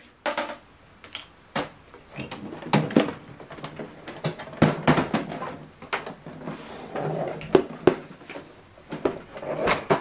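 Irregular clicks, knocks and rubbing from an HP OfficeJet Pro 9120e inkjet printer's plastic casing being handled on a desk.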